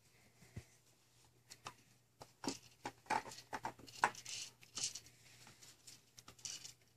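Plastic toys on a baby's activity jumper being handled by the baby: scattered light clicks, taps and rattles, starting about two seconds in.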